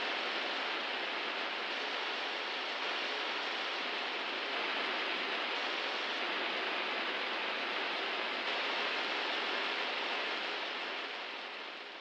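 A steady, even hiss with no bangs or crackles, fading out near the end.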